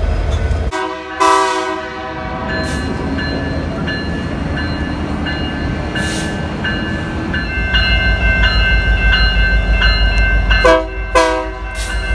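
Canadian Pacific SD70ACU locomotive's air horn blowing for a grade crossing: two blasts about a second in and two more near the end. Between them the crossing signal bell rings in a steady repeating beat, and the diesel's low rumble builds as the locomotive draws close.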